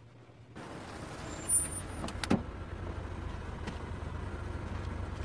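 A car running, with a steady low engine hum and road noise that start about half a second in. A brief high-pitched tone comes about a second and a half in and a sharp click a little later.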